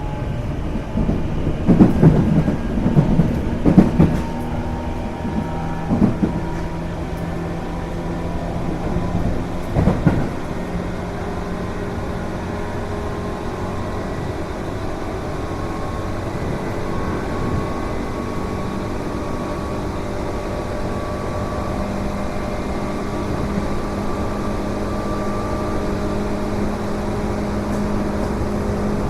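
Tobu 8000 series resistance-control electric train heard from inside the car: several heavy knocks from the running gear in the first ten seconds, then steady running noise with a hum and a whine that rises slowly. The car makes a constant noise that the recordist suspects comes from a faulty switchboard.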